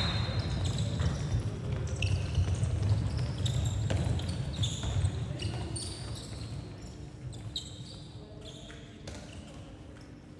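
Indoor handball game: a ball bouncing and players' shoes squeaking on the sports-hall floor, in a reverberant hall. The activity is busier in the first half and quietens toward the end.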